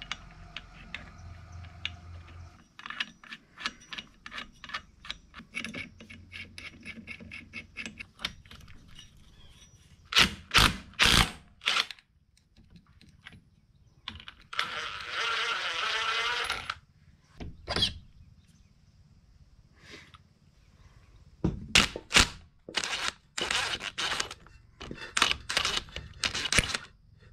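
Small metal clicks and clinks of engine-cover parts being handled on a Honda ATC 200S engine, then a few loud knocks, and bursts of a DeWalt cordless impact driver rattling, the last run of them loosening the engine's oil drain bolt.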